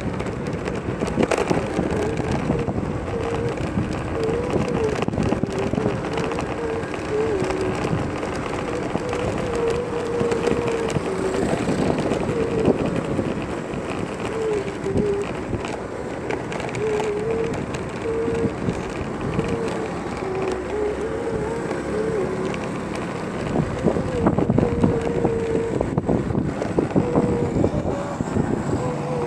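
Wind rushing over the microphone and vehicle noise while riding along a street in traffic, with a wavering tone that shifts in steps throughout.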